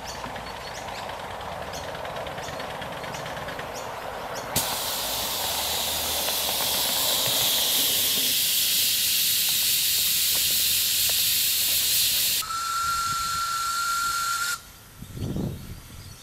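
A live-steam miniature model of an NSWGR Standard Goods class locomotive runs with faint regular clicks. About four and a half seconds in, steam starts blowing off with a loud steady hiss that lasts about eight seconds. Its single-note steam whistle then sounds for about two seconds, and hiss and whistle stop together abruptly.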